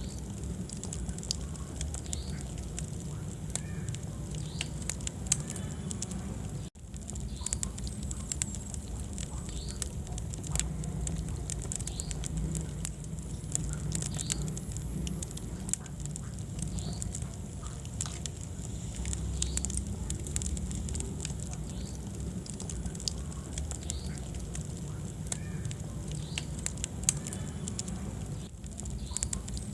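Wood fire in a fireplace, crackling and popping irregularly over the low, steady rumble of the flames. The sound cuts out for an instant about a quarter of the way in.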